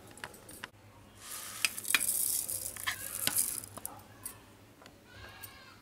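Curd and granulated sugar spooned into a steel mixer-grinder jar: a spoon scraping and clicking on steel, with a soft hissing rustle from about a second in until nearly four seconds, then a few light clicks.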